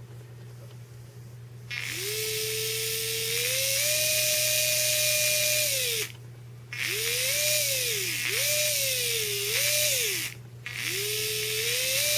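Small electric motor and gear train of a 1/24 Redcat Sumo RC crawler whining in three throttle bursts, the pitch rising, holding and falling each time. It is a test run of the rebuilt transfer case with a metal gear and a white Delrin gear, which runs fine.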